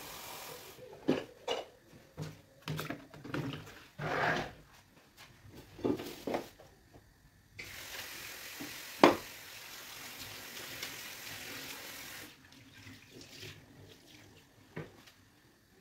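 Water running and splashing as green beans are washed in a plastic bowl of water, with several sharp knocks and splashes, the loudest about nine seconds in.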